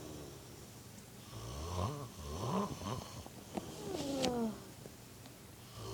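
A sleeping man snoring with his mouth open: a few short snores rising in pitch in quick succession from about a second and a half in, then a falling snort with a sharp click near the middle.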